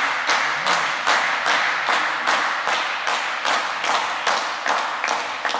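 Spectators clapping in a steady rhythm, about three claps a second over a wash of applause, gradually fading away.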